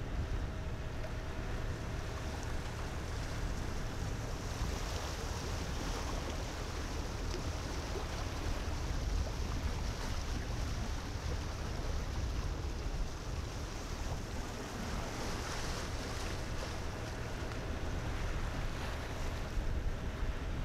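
Small tugboat's engine running steadily under way, a low drone, with water rushing past the hull and wind on the microphone; the rushing water and wind grow louder through the middle stretch.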